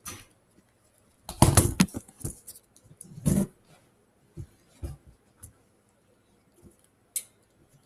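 Irregular knocks, clicks and rustles of things being handled, with the loudest cluster about a second and a half in and another about three seconds in, then a few scattered ticks.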